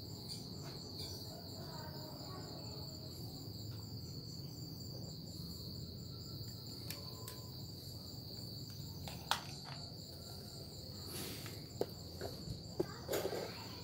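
Steady high chirring of crickets. A few faint clicks and knocks come in the last few seconds.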